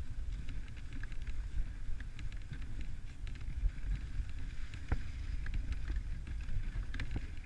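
Dog sled gliding over packed snow: a steady hiss of the runners over a low rumble of wind on the microphone, with scattered small clicks and a sharper click about five seconds in.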